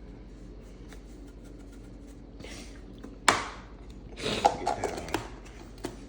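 Kitchen handling noises as seasoning containers are handled at the bowl: a sharp knock about three seconds in, then about a second of clattering clicks and rattles, over a steady low hum.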